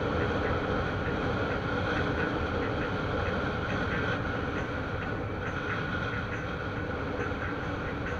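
Motorcycle riding at a steady cruising speed: engine running evenly under a constant rush of wind noise.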